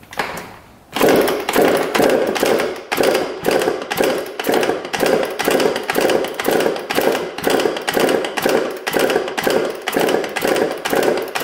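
1998 Kawasaki KX125 two-stroke engine turned over repeatedly with the kickstarter for a compression test, a steady train of strokes at a little over two a second, starting about a second in. The gauge reads 220 psi, unusually high for a 125.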